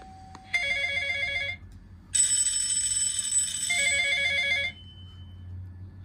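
Recorded telephone ringing played from a smartphone's speaker: a trilling ring of about a second, a short pause, then a brighter, fuller ringing of about two and a half seconds with the trill coming back under it near the end, stopping about five seconds in.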